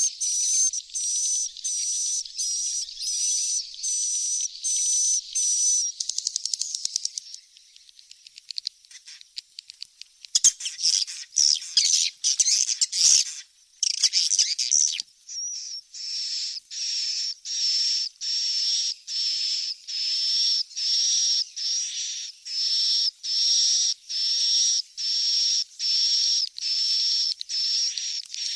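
Swiftlet lure sound: high, twittering swiftlet chirps repeated at a steady beat of about two a second. In the middle the pattern gives way to a stretch of rapid clicking chatter, then the steady chirping resumes. It is a call played to draw swiftlets to a nesting house.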